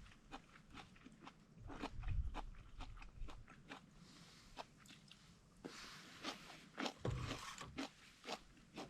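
Someone eating, chewing and crunching food: a string of irregular crisp crunches with a few dull thumps.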